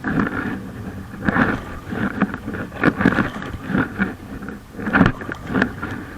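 Packraft paddle strokes in water, irregular splashing swells about once a second, over wind noise on the microphone.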